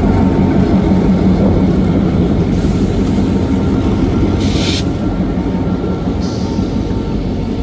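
EMD F7A diesel locomotives rolling slowly past, with a steady low diesel rumble and wheel-on-rail noise. A brief hiss sounds about four and a half seconds in.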